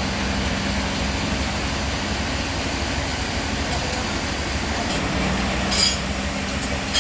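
A machine engine running steadily with a low hum, with a short sharp knock about six seconds in.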